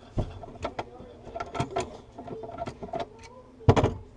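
A string of clicks and knocks from handling plumbing parts and tools, with a louder clatter of several knocks close together nearly four seconds in.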